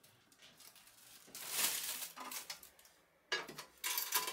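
Plastic bag and filter pad rustling and crinkling as they are handled, then a run of sharp metallic clicks from the metal toggle latches on the Flux Beamo Air filter unit's lid near the end.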